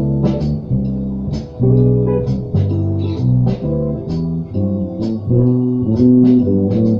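Guitar playing: picked notes in the low register, each ringing out for about half a second before the next, with a sharp pick attack at each change of note.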